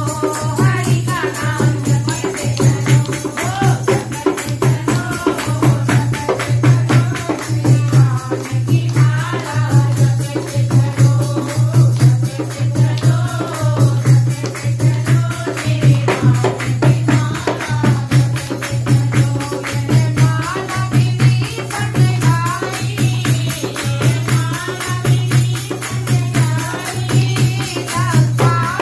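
Group of women singing a Hindi devotional bhajan to Ram in call-and-response style. A dholak drum keeps a steady beat under it, with hand clapping and rattling hand percussion.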